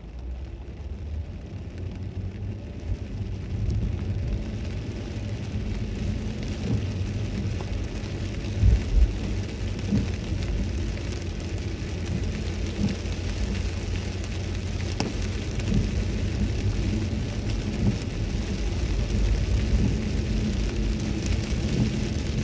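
In-cabin road noise of a Toyota Celsior driving in the rain: a steady low rumble and hiss of tyres on wet pavement, with a couple of brief thumps about nine seconds in.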